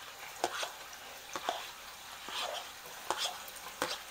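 Chopped garlic sizzling faintly in hot oil in a stainless steel pot, with irregular sharp clicks and taps of a metal spoon scraping the garlic off a plastic bowl and against the pot.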